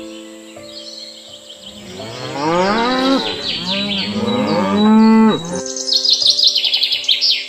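A cow mooing: drawn-out calls that swell from about two seconds in and rise and fall in pitch before stopping about five and a half seconds in. A bird chirps in quick trills near the end.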